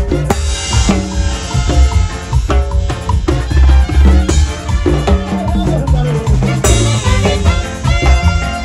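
An Ecuadorian brass band plays a sanjuanito: horns over a steady drum beat, with cymbal crashes about three times.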